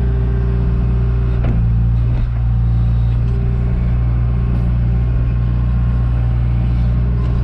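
John Deere 310G backhoe's diesel engine running steadily while the bucket digs and grades a trench bottom, with a few faint knocks.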